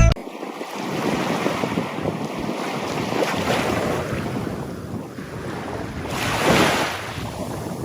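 Wind buffeting the microphone over rushing water or surf, a steady noise that swells about six and a half seconds in.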